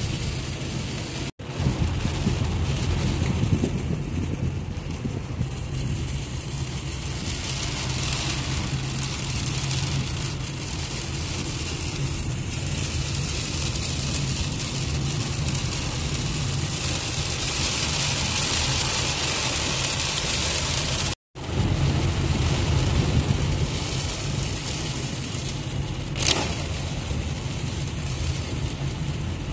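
Heavy rain and wet-road noise heard from inside a moving car in traffic: a steady low rumble of engine and tyres under a hiss of rain and spray that grows stronger about two-thirds of the way through. The sound drops out briefly twice, and there is a short click a few seconds before the end.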